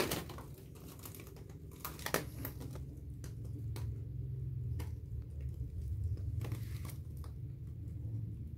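Handling noise: a steady low rumble with scattered crinkling clicks, the loudest at the very start and about two seconds in.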